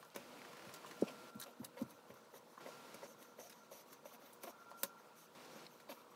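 Faint, scattered light taps as paint is dabbed onto paper with a cotton ball and a hand knocks on the tabletop, the clearest about a second in and near five seconds in, over a faint steady hum.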